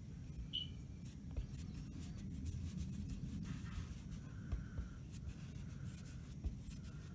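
Small paintbrush stroking paint onto a hardened ready-mix filler surface: faint, scratchy, irregular brush strokes over a low steady background hum.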